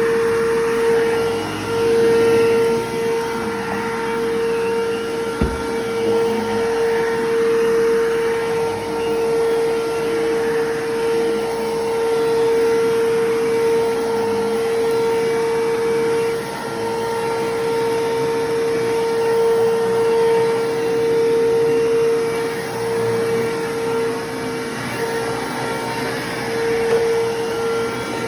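Bissell Lift-Off bagless vacuum cleaner running with a steady high motor whine over a rushing airflow, its level wavering a little as it is worked across the floor. There is a single sharp knock about five and a half seconds in.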